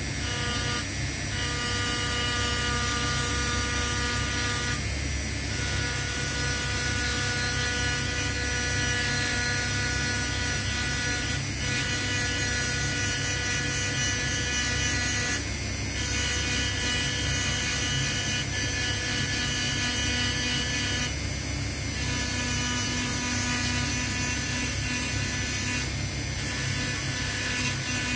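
Dremel rotary tool with a tungsten carbide point running at a steady high whine while engraving a decorative pattern into a metal knife band. The tone wavers briefly every few seconds as the point is moved and pressed against the metal.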